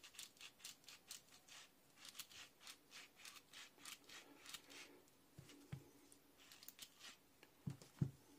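Bike cable and housing cutter pliers worked open and shut in the hand, giving a quick series of light metallic clicks, about three or four a second, for several seconds. Near the end come a few soft thumps, the loudest as the pliers are set down on the carpet.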